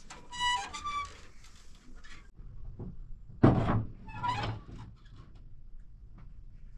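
A heavy thump about three and a half seconds in, the loudest sound here, with a short high-pitched call near the start and a few lighter knocks.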